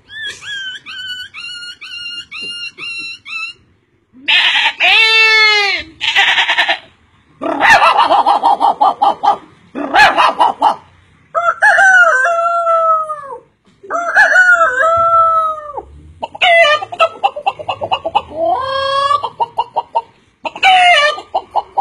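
A man's vocal imitation of chickens: first a run of short repeated chirps, then a series of separate loud bursts of rooster crowing and hen clucking.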